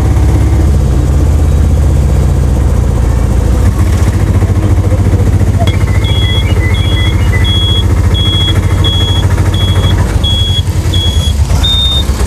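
Auto-rickshaw engine running steadily, heard from inside the cab. About halfway through, a short high electronic beep starts repeating roughly every 0.7 seconds, like a vehicle's reversing alarm, and its last two beeps are a little higher.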